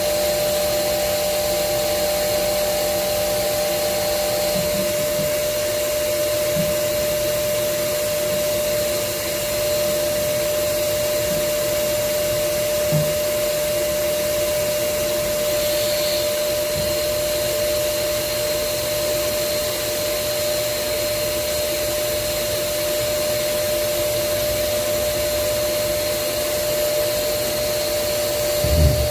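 Automatic CNC tool grinder running steadily while grinding a drill bit: a constant motor hum with one steady tone over an even hiss. A couple of low knocks come near the end.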